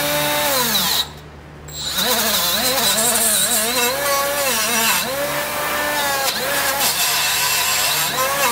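Right-angle die grinder spinning a wire wheel against a steel mud flap bracket to clean it before welding: a motor whine that rises and falls in pitch as it is pressed on and eased off, over the scratch of the wire bristles. It stops briefly about a second in, then starts up again and runs on.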